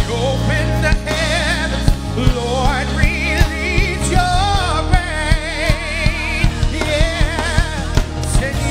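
Gospel worship music: a band with drums and bass plays under a voice that sings long, wavering runs with wide vibrato and no clear words.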